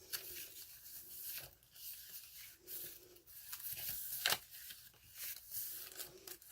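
Paper rustling and scraping as the pages of a handmade junk journal of old and tea-dyed papers are handled and turned, with a sharp click about four seconds in.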